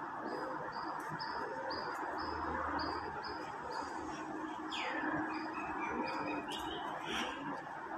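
A bird chirping in the background: a short high note repeated about twice a second, then about five seconds in a longer downward-sliding call that runs into a quick string of lower notes.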